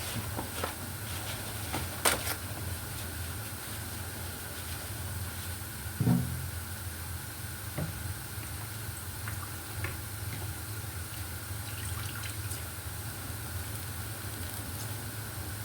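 Kitchen work sounds over a steady low hum: scattered light clicks and clatter, with two louder knocks, about two seconds in and about six seconds in.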